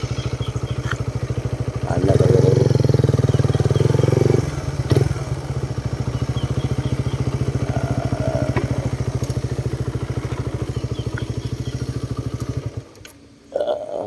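Small motorcycle engine idling with a steady fast pulse, rising a little in level about two seconds in and settling back a couple of seconds later, then switched off about a second before the end, leaving a few clicks.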